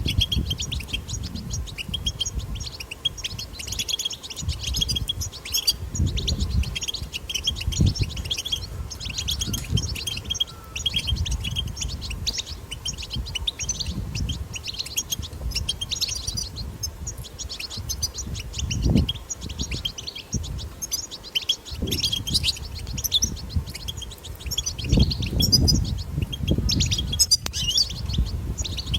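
European goldfinch chattering song: a continuous run of rapid high twittering chirps. A low rumble rises and falls underneath.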